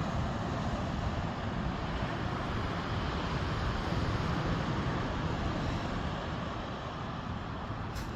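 Steady rushing of wind buffeting the microphone over the sound of ocean surf, heaviest in the low rumble and without any rhythm.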